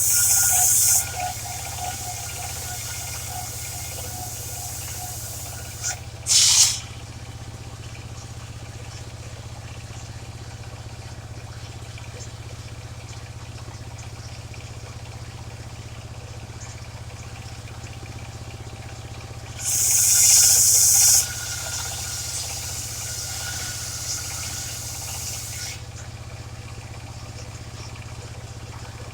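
Portable engine-driven circular sawmill running with a steady low hum, its blade cutting through waru wood twice. Each cut starts with a loud burst of high hiss that settles into a quieter hiss for about five seconds. The first cut ends with another brief loud burst.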